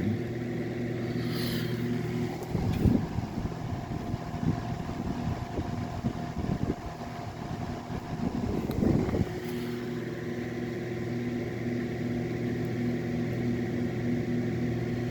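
Zero 12-inch box fan running on high, its motor giving a steady hum along with the rush of its blades' air. The motor is still cold, drawing more current than its rating. Two brief swells of noise come about 3 and 9 seconds in.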